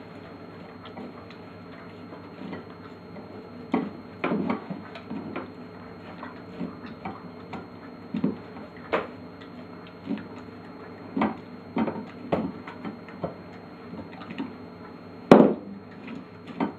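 Flat-coated retriever eating dog food off a glass plate on the floor: irregular chewing and licking with clicks and knocks against the plate, one sharper click about a second before the end.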